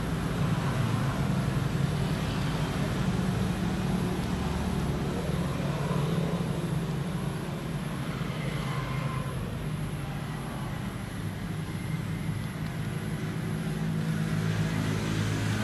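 Steady low mechanical drone of an engine running, even in level throughout.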